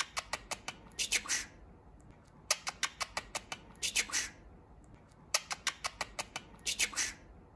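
Budgerigar chattering: a quick run of sharp clicks ending in a short high chirp, repeated three times.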